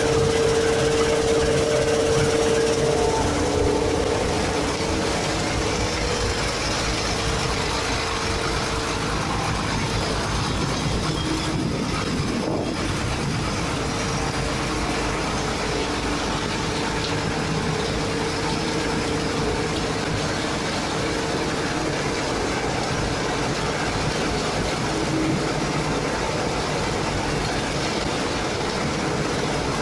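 Concrete reclaimer running: steady machinery noise from its drive and screw separator, with a steady hum that is strongest for the first few seconds and then fades back.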